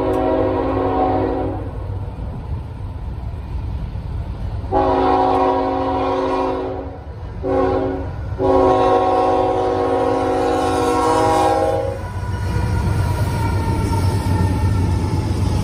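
Norfolk Southern diesel locomotive's air horn blowing the grade-crossing signal, several notes sounding together: the tail of one long blast, then a long, a short and a final long blast. After the last blast the low rumble of the locomotives passing over the crossing rises.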